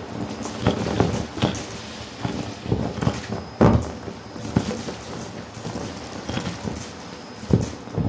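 Shark Navigator vacuum running with its bare extension wand on carpet, sucking up polyester fluff and small hard plastic bits and beads. The pieces clatter and crackle irregularly as they are pulled up the wand, with a few louder knocks, the strongest about three and a half seconds in and again near the end.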